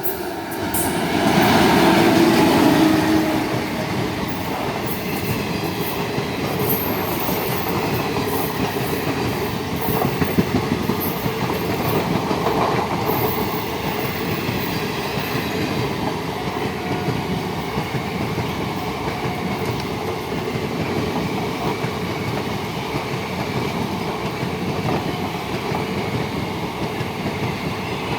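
Indian Railways WAG-7 electric locomotive passing at speed, loudest about two seconds in, followed by its train rolling steadily past with a continuous clatter of wheels over the rails.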